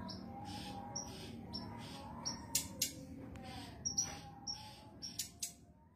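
Female brown-chested jungle flycatcher calling: a loose series of short high whistled notes about once a second, mixed with sharp clicking notes, some in quick pairs. These are the calls of a female in breeding condition calling for a male.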